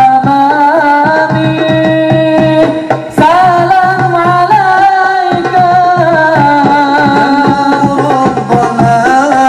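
Hadroh ensemble performing sholawat: a lead singer chants an ornamented melody through a microphone over frame drums (rebana) beating a steady rhythm. The voice breaks off briefly about three seconds in and starts a new phrase.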